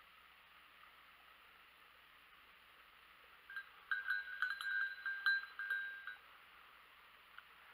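A bell on a hunting dog's collar rings with quick, irregular clanks for about two and a half seconds, starting about three and a half seconds in, as the dog moves through the bracken.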